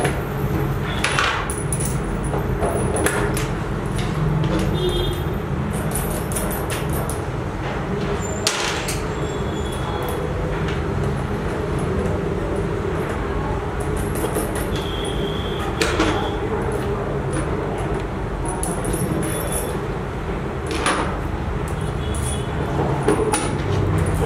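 Scattered clicks, clinks and light knocks of small metal parts (pins, rings, nuts and bolts) being handled and fitted together by hand, over a steady room hum.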